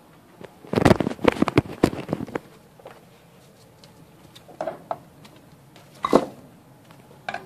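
Knocks and rustling from handling at a wire guinea pig cage: a close cluster of them about a second in, then a few short, separate noises later.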